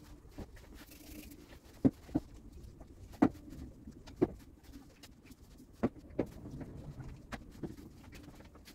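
Scattered light knocks and clicks, about eight, irregularly spaced, over a faint steady low hum.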